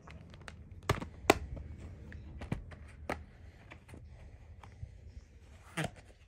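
A plastic Blu-ray case being handled and snapped shut: a string of sharp plastic clicks and knocks, the two loudest about a second in. A cardboard slipcover then slides over the case, with one more knock near the end.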